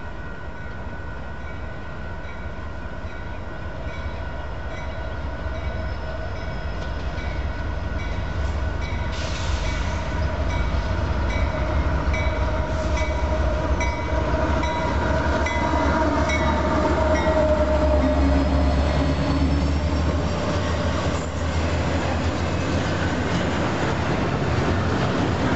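Union Pacific freight train with four diesel locomotives approaching and passing close by: a low engine rumble that grows louder and is loudest as the locomotives go past. The double-stack container cars then roll by with rail and wheel noise.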